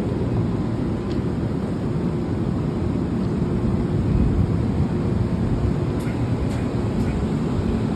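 Train running with a steady low rumble, a faint steady tone held through the middle.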